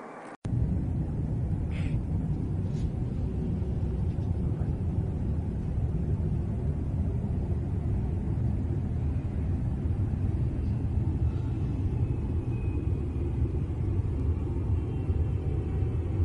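A loud, steady, low rumbling drone, one of the unexplained 'groaning' sounds circulated in 2011, picked up on a phone's microphone. It starts abruptly about half a second in and holds evenly, with no words over it.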